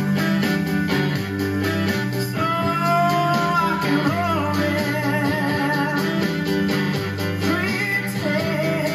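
A male singer singing with a small band, guitar, upright bass, drums and piano, holding one long wavering note around the middle.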